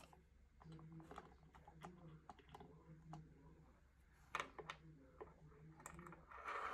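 Faint small clicks and taps of a small screwdriver and plastic HO-scale model train parts being handled on a wooden tabletop, with a sharper cluster of clicks about four and a half seconds in.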